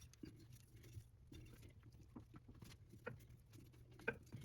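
Faint, scattered light clicks and scrapes of hand tools and a metal part being handled, with a sharper click about four seconds in.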